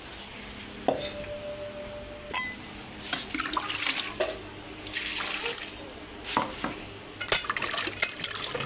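Water being scooped, poured and sloshed as raw green mangoes are rubbed clean by hand in a pot of water, in several splashy bouts. About a second in, a metal bowl clinks and rings for more than a second, with a second ringing clink shortly after.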